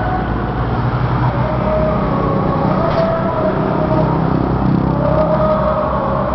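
Steady roadside traffic: vehicle engines running and passing, with a constant low hum and a few held engine tones that drift slightly in pitch.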